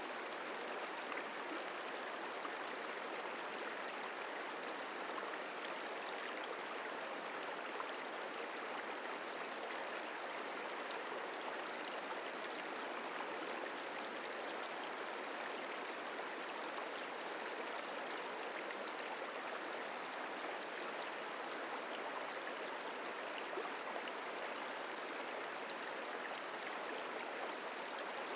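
Merced River flowing, a steady, even rush of water.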